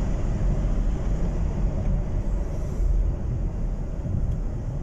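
Steady low rumble of a Ford Expedition's twin-turbo 3.5 L V6 and the road, heard from inside the moving SUV. The engine is running smoothly, its cylinder 6 misfire cured by new spark plugs.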